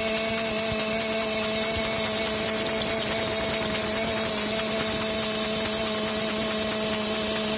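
Car engine running with its drive belt squealing at a steady high pitch. The squeal comes from the belt tensioner's upper pulley, which sits off-centre and has a lot of play.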